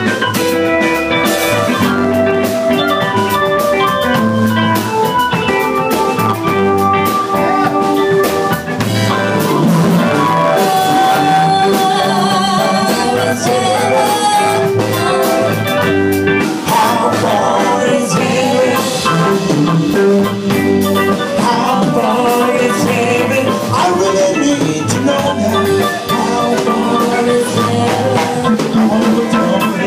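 Music with singing over a steady, even beat.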